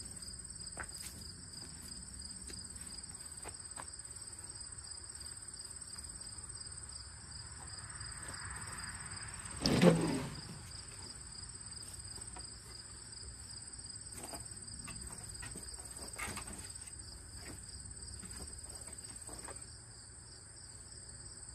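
Steady chirping of insects, with a few light knocks of wood being handled. About halfway through, one loud thud as a wooden pallet is carried in and set down on the ground.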